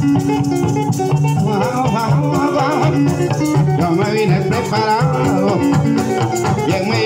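Joropo played live on a Venezuelan llanera harp, bass notes under a plucked melody, with maracas shaken throughout; a man's voice sings over it at times.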